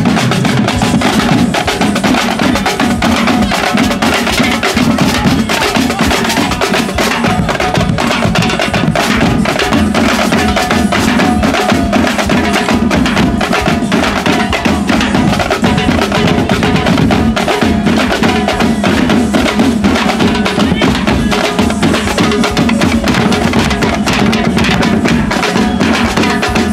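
Loud, continuous music driven by drums and percussion, with a dense, unbroken beat.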